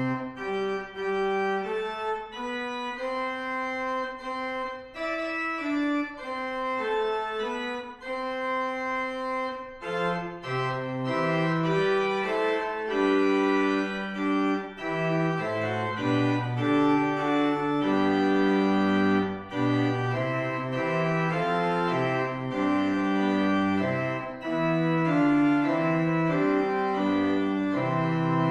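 Organ playing the opening hymn tune in sustained chords, with no singing heard. Deeper bass notes come in from about ten seconds in, making it fuller.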